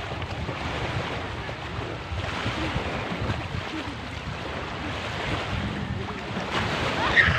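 Wind buffeting the microphone in an uneven low rumble, over the steady wash of small waves on the beach.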